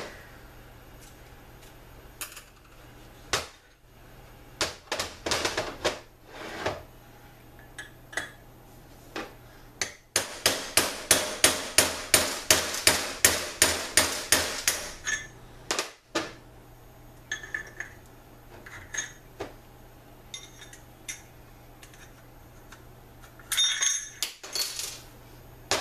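Hammer beating on a long steel bushing driver set in a TH400 transmission part, a quick even run of about twenty blows, four or five a second, driving a bushing. Before and after, scattered metal knocks and clinks of parts being handled.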